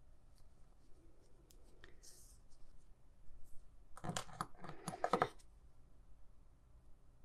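Small metal embroidery scissors picked up from a marble tabletop and brought to the yarn to snip it: a quick cluster of sharp metallic clicks about four to five seconds in, with faint rustling of wool yarn before it.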